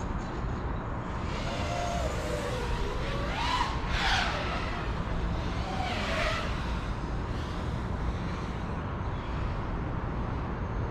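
FPV quadcopter's motors and propellers whining, the pitch sweeping up and down in three throttle bursts about two seconds apart, over a steady rushing noise.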